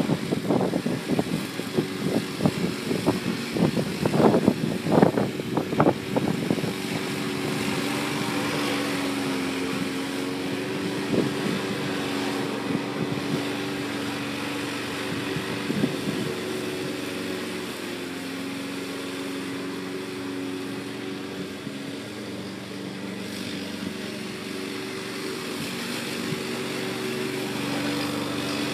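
Small lawn mower engine on a homemade remote-controlled mower running steadily as it drives and mows, its pitch wavering slightly. Irregular knocks over the first six seconds.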